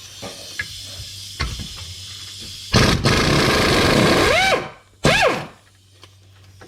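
Air ratchet spinning a loosened 13 mm bolt out, in two trigger pulls. A long run of nearly two seconds ends in a whine that sweeps up and down as the tool slows, and a short second burst follows. A few light metal clicks come before them.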